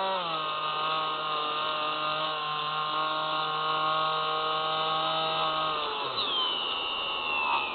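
Electric motor and propeller of a Spyhawk FPV model plane buzzing at a steady pitch, which steps down just after the start as the motor slows. About six seconds in the motor winds down sharply and a high whine glides downward.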